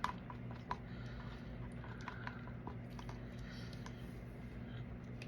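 Scattered light clicks and taps of plastic resin mixing cups and a stir stick being handled, over a steady low hum.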